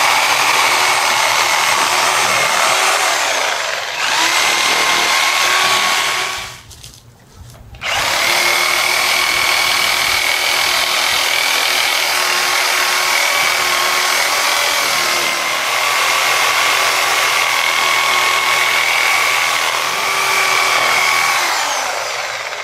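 Corded reciprocating saw running as its fresh wood-cutting blade cuts through thick bush roots in the soil, its motor giving a steady whine. It stops for about a second and a half about six seconds in, then runs on until it tails off near the end.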